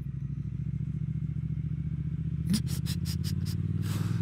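Triumph Speed Twin 1200's parallel-twin engine with Vance & Hines exhausts ticking over steadily at low revs. A little over halfway there is a quick run of about six sharp clicks, and near the end a short rush of noise.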